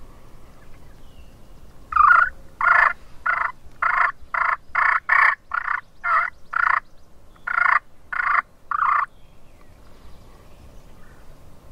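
Wild turkey calling: a series of about fourteen short, evenly spaced notes, roughly two a second, starting about two seconds in and stopping near nine seconds.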